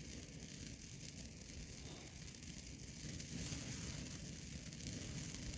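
Ground firework fountain burning with a steady hiss of spraying sparks.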